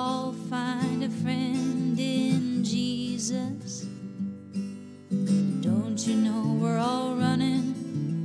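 Background music between sung verses: strummed acoustic guitar with a wavering melody line over it, dipping briefly about five seconds in.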